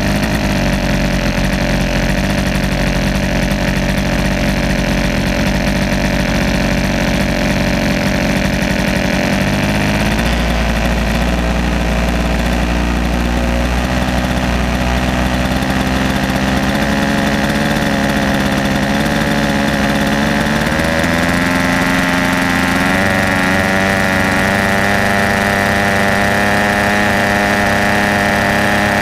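Airstar Mongoose radio-controlled helicopter's engine running on the ground. Its note shifts about ten seconds in, then climbs over a couple of seconds about twenty seconds in as the rotor speeds up, and settles into a steady higher note.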